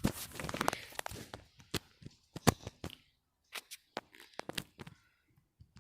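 Rustling and a scattering of sharp clicks and knocks, busiest in the first second and a half, with one louder click about two and a half seconds in, then dying away to near quiet near the end.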